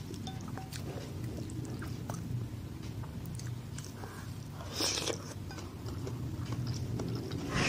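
Close-up mouth sounds of eating instant noodle soup: steady chewing with small clicks, and a short slurp of noodles about five seconds in.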